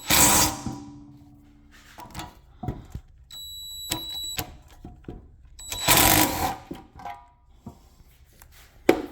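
Two short loud bursts of a power tool, one at the start and one about six seconds in, with a brief high whine in between and scattered metal clinks and knocks from tools and bolts being worked off a brake backing plate.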